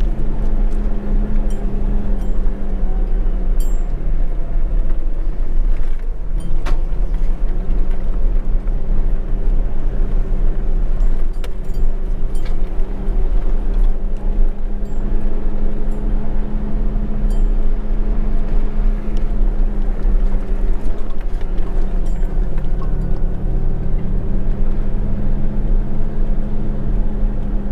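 Pickup truck's engine running steadily at low speed while the truck crawls over a rough, rocky dirt trail, with a constant low rumble and scattered knocks and rattles from the bumpy ground.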